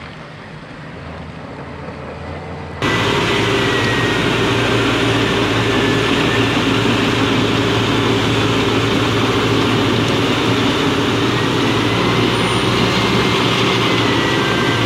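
Diesel engines of heavy mining machines running steadily: a quieter engine hum at first, then about three seconds in a sudden jump to much louder engine noise from a Caterpillar wheel loader and haul truck, with a faint high whine over it.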